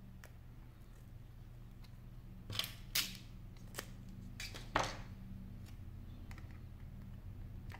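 Tape being pulled off a roll: a handful of short rips and clicks around the middle, the loudest of them a slightly longer tear, over a faint steady low hum.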